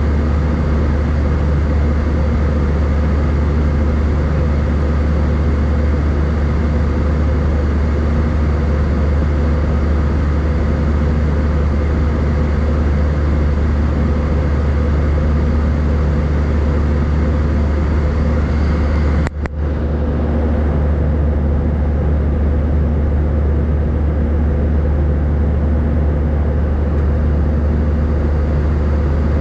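Airbus A319 cabin noise in flight, heard beside the wing: a steady drone from the jet engines and airflow with a strong low hum. A brief dropout comes about two-thirds of the way through.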